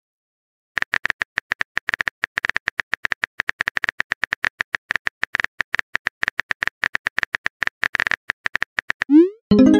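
Simulated phone-keyboard typing clicks, several a second and irregular, for about eight seconds as a message is typed. Near the end comes a short rising swoosh as the message is sent, then a brief chime.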